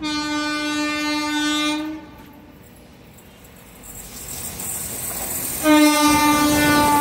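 Indian Railways express train horn sounding two long blasts, the first about two seconds long and the second starting near the end, over the growing rumble of the approaching train. The second blast dips slightly in pitch at its end as the train closes in.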